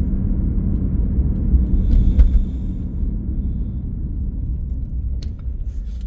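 Steady low rumble of a car's engine and tyres heard from inside the cabin while driving slowly, with a single sharp knock about two seconds in and a few small clicks near the end.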